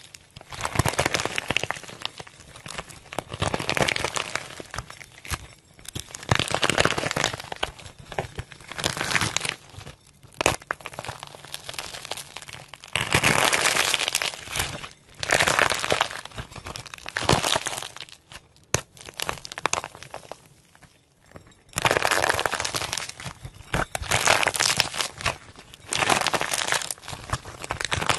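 Dry, hardened clay shaped like crusty bread cracking and crinkling as hands tear and squeeze it apart. It comes in repeated crackly bursts of a second or two with short pauses between.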